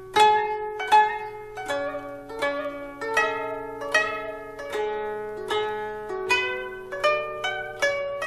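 Background music on a plucked zither-like string instrument: a slow melody of single plucked notes, each ringing and fading before the next.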